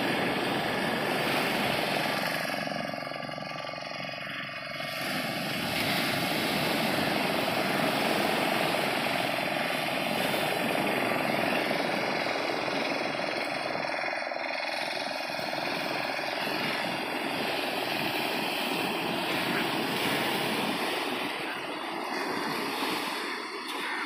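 Sea surf breaking and washing on the shore in a steady rush.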